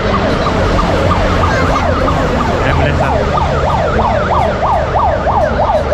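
Vehicle siren in fast rising-and-falling sweeps over the low rumble of street traffic. The sweeps overlap untidily for the first couple of seconds, then settle into a steady yelp of about three a second.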